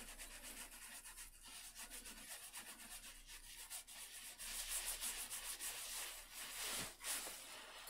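Light rubbing strokes on a wooden plate as blue colour is worked onto the surface by hand, in quick repeated strokes that get louder from about halfway through.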